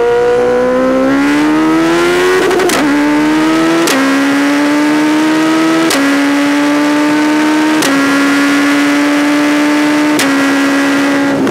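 Suzuki Hayabusa's four-cylinder engine and exhaust pulling hard through the gears at high speed. The pitch climbs in each gear and drops back with a sharp crack at each of several upshifts, and the climbs get slower in the higher gears. A steady rush of wind runs underneath.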